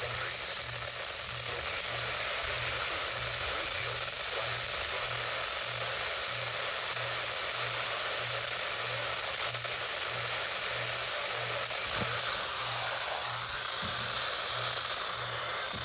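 Radio receiver static: a steady hiss with no programme audio, under a low buzz that pulses about one and a half times a second. A couple of faint clicks come near the end.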